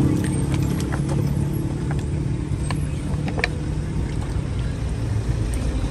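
A steady low engine rumble, with a few light knocks and clicks in the first few seconds as trimmed green coconuts bump against each other in a water-filled cooler.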